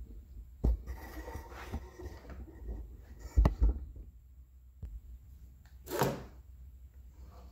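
Handling noises from a clear plastic tube being touched and moved in its plastic holders: a knock, a stretch of rustling and scraping, then a pair of hollow thumps about three and a half seconds in, which are the loudest, and a short swish near the end.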